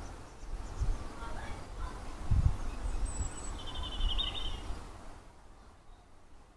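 Wild birds calling: scattered short chirps, then a brief high note and a rapid trill about four seconds in, over low wind rumble with a couple of thumps on the microphone.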